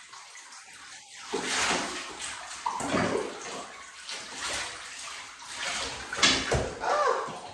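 Water poured from a plastic cup over a yellow Labrador puppy in a bathtub, splashing into the tub in several separate pours, the loudest near the end.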